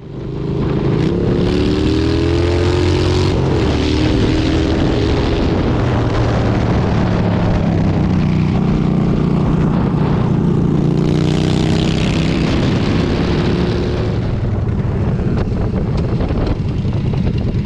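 Motorcycle engine running under way, its pitch drifting up and down with engine speed over a steady rushing noise.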